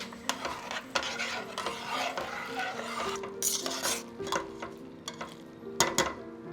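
Food sizzling in a frying pan while it is stirred, with the utensil scraping and knocking against the pan. Louder scraping strokes come about three and a half seconds in and again near the end.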